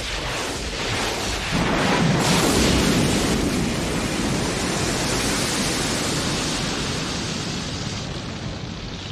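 Film sound effect of a large explosion: a sudden blast about a second and a half in, then a long rumble that slowly fades.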